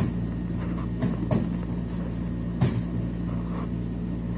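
A steady low mechanical hum, with a few short knocks about a second in and again near three seconds as a WPC wall cladding panel is handled and pressed into place.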